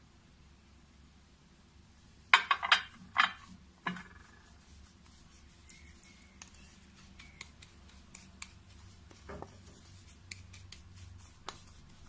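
A spoon clinking sharply against a small dish several times about two seconds in, then light scraping and ticking as ground cumin and olive oil are stirred together into a thick paste.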